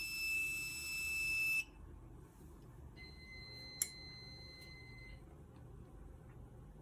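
Fire-Lite MS-9600UDLS fire alarm control panel's piezo sounding a steady high beep that cuts off about a second and a half in as the system is reset. A fainter, lower steady beep follows for about two seconds, with a sharp click partway through.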